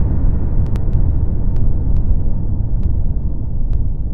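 Deep rumble of explosions dying away, its higher part fading steadily, with a few faint crackles.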